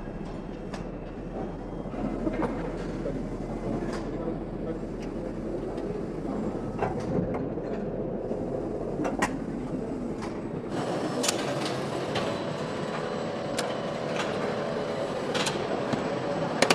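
Factory floor machinery running steadily, with scattered sharp clicks and clanks of metal parts. About eleven seconds in, a louder steady machine hum with several tones joins in.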